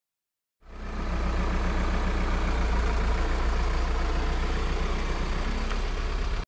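Volkswagen Transporter van's engine idling steadily, starting about half a second in.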